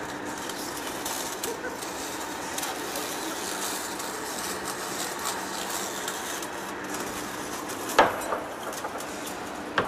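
Large heavy-duty lathe turning a big steel workpiece while its cutting tool peels off chips: a steady machine hum and noise, with a sharp knock about eight seconds in and another near the end.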